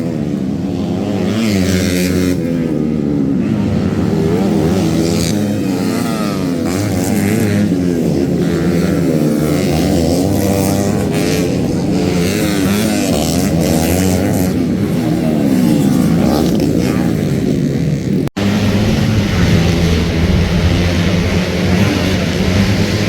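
Motocross bike engines revving up and down through the gears, several pitches rising and falling and crossing at once, with a brief break in the sound about eighteen seconds in.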